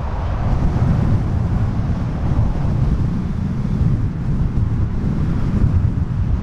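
The three turbofan engines of a Dassault Falcon 7X business jet running at taxi power as it turns onto the runway. They make a steady low rumble, mixed with wind buffeting the microphone.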